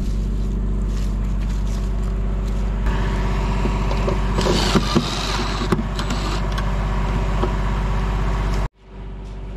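An engine idling steadily. About three seconds in, a cordless drill-driver runs briefly over it, driving the headlight retaining screws with a few sharp clicks. The sound cuts off abruptly near the end.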